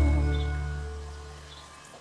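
Background music: the final held chord of a song rings out and fades away.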